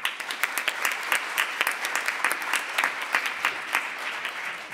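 An audience applauding: many hands clapping at once, starting suddenly and holding steady, then starting to die away near the end.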